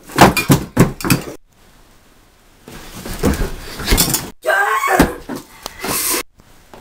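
Children imitating animals eating. A quick run of loud slaps and snaps comes in the first second and a half, with hands clapping together like an alligator's jaws. Then there is rustling and munching in a pile of leaves, with short mouth noises.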